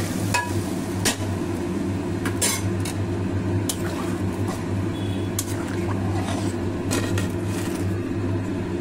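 Metal spatula scraping and clinking against a kadai while stirring a watery curry, in a dozen or so irregular knocks, over a steady low hum.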